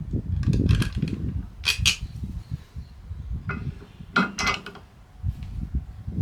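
Metal clinks and rattles of bolts, washers and tools being handled while fitting a towbar, in three short clusters, over a low rumbling handling noise.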